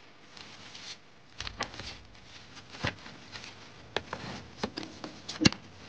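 A paper brochure being handled and folded on a wooden ledge: rustling and crinkling with a string of sharp taps, the loudest about five and a half seconds in.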